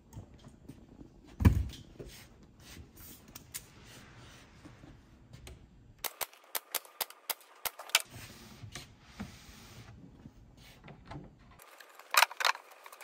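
A heavy thump about a second and a half in, then a pneumatic brad nailer firing nails into a plywood cabinet joint: a string of sharp shots about three a second, with another quick run of sharp clicks near the end.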